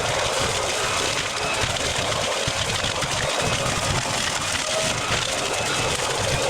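Black & Decker BEBLV301 electric garden blower-vacuum running steadily: a constant rush of air driven by its impeller.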